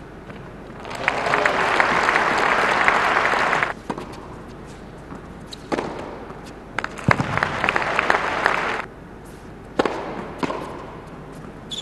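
Tennis crowd applauding, then a few sharp hits of the ball during a rally, then a second, shorter round of applause.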